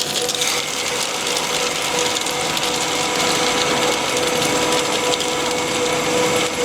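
Tube ice machine discharging a harvest batch: a steady motor whine with a dense clatter of ice tubes being cut and tumbling out of the discharge, near the end of the batch.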